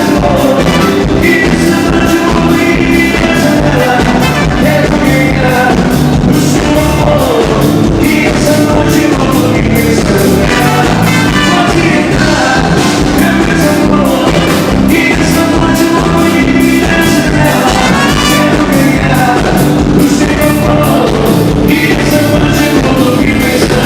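Live band playing arrasta-pé dance music, with a singer over a steady drum beat.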